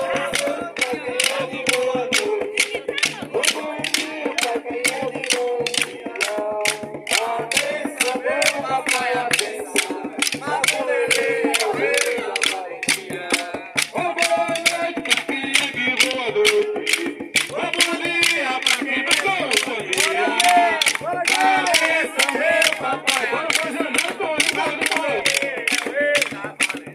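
Capoeira roda music: a group sings together in call-and-response style, with steady rhythmic hand clapping about three times a second and a pulsing low instrument beneath.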